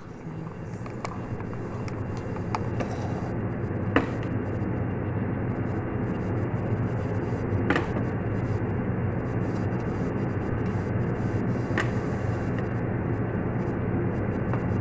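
A steady low mechanical hum, like a fan or motor running, with a few sharp clicks about four seconds apart as leaves are packed by hand into a food chopper's bowl.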